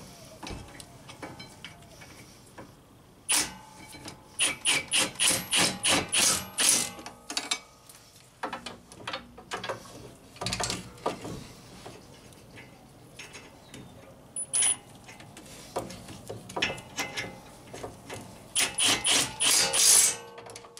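Milwaukee cordless impact wrench hammering rear brake caliper bracket bolts home in short trigger bursts. There is a single burst about three seconds in, a quick string of about eight bursts soon after, a few scattered ones in the middle, and another string near the end.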